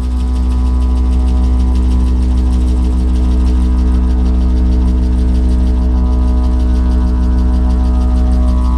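Long wooden didgeridoo played as a loud, steady low drone, rich in overtones. The upper overtones shift slightly near the end.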